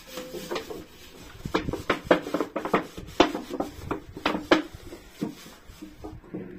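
Sharp knocks and clatters of a metal tin being handled, in a quick irregular run that starts about a second and a half in and stops well before the end.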